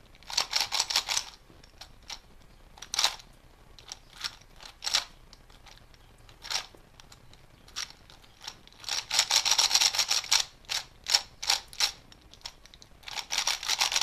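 A plastic speedcube puzzle being turned by hand: fast flurries of clicking and clacking as its layers rotate, with single turns between, the densest run about nine to ten and a half seconds in.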